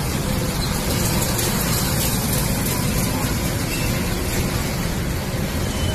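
Go-karts running on the track, heard as a steady rough noise with no distinct engine pitch.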